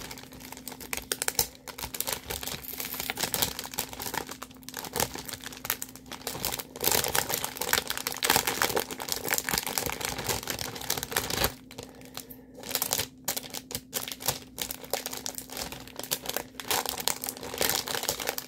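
Clear plastic packaging bag crinkling as it is handled and pulled open, in a continuous run of crackles with a short lull about twelve seconds in. A faint steady hum runs underneath.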